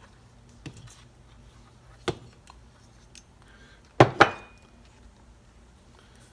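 Hard objects being handled and set down on a workbench: a couple of light clicks, then two sharp clinks about four seconds in, the second with a short ring.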